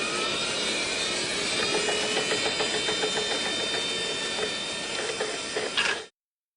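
A machine spooling up with a whine: several rising tones over a steady hiss level off about a second and a half in and hold. A few sharp knocks come near the end, and then the sound cuts off abruptly.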